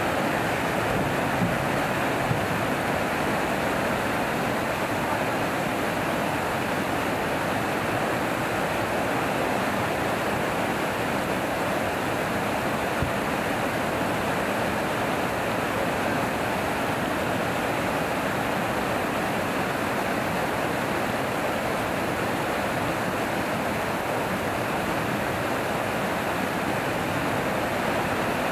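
Water pouring over a low river weir and churning in the pool below: a steady, unbroken rush of white water.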